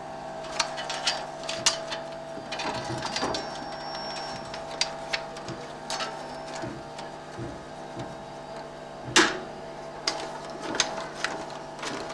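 35 mm film projector running: a steady mechanical hum and whirr with irregular clicks and a few sharper knocks, the loudest about nine seconds in.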